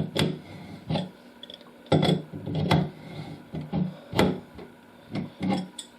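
Metal tools clicking, knocking and scraping on a Moen shower valve as an adjustable wrench turns the cartridge puller to draw the old cartridge out. About seven irregular knocks, with rubbing between them.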